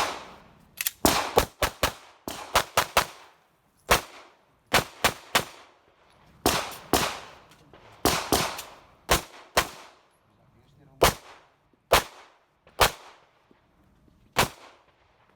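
Handgun shots fired on an outdoor range during a timed IDPA course of fire. They come in quick pairs and strings of two to four, with short pauses between groups, and each shot has a brief echo. The last shot comes about a second before the end.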